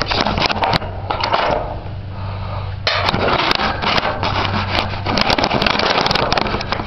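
An old engine being cranked over by its starter motor in two long bursts, one at the start lasting nearly a second and one from about three seconds to six and a half, without catching. A low steady hum fills the pauses.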